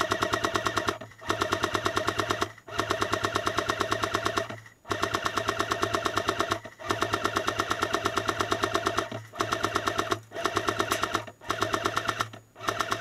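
Airsoft M60 electric machine gun firing long full-auto bursts, about nine of them with brief pauses between. Each burst is a fast, even rattle over a buzzing motor-and-gearbox whine.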